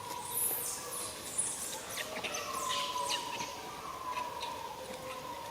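Macaque giving drawn-out whimpering calls that fall slowly in pitch, one about every second and a half, the crying of a hungry, distressed young monkey. Short high chirps and a few sharp clicks sound over them.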